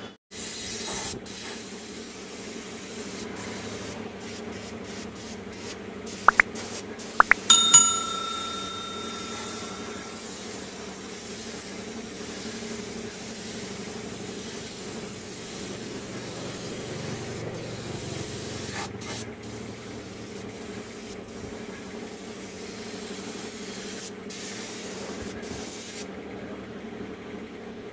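Paint spray gun hissing steadily with short breaks as the trigger is released, stopping about two seconds before the end, over a steady low hum. About seven seconds in, a few sharp clicks and a bell-like ding from a like-and-subscribe animation.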